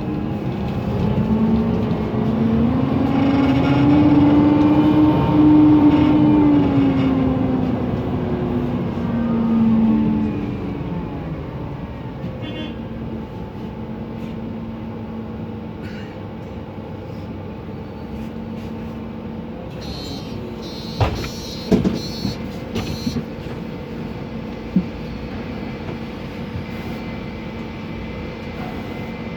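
Mercedes-Benz Conecto NGT city bus's OM 936G CNG engine running, its pitch rising over the first few seconds and falling back by about ten seconds in, then holding a steady lower tone. A few sharp knocks and clicks come about two-thirds of the way through.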